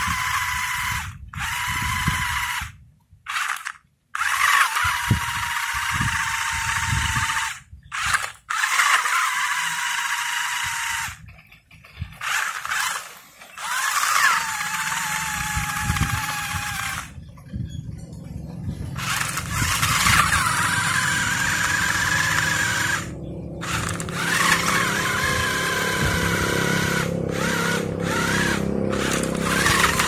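The electric motors and gearboxes of a toy RC stunt car whine as its wheels spin in the dirt. The whine cuts out and starts again many times, dropping in pitch as it winds down a few times.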